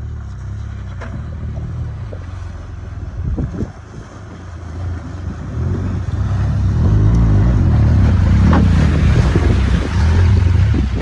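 BMW R 1200 GS adventure motorcycle's boxer-twin engine running as it rides through a shallow river, with water splashing around the wheels. It gets louder from about six seconds in as the bike ploughs through the water.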